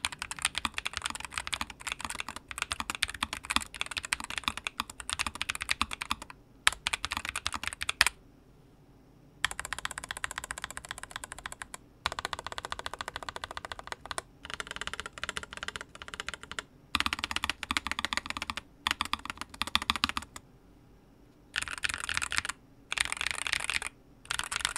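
Typing on a NuPhy Air75 V2 low-profile mechanical keyboard fitted with XVX Skyline low-profile PBT double-shot keycaps. It comes as runs of rapid key clacks broken by short pauses, the longest about eight seconds in.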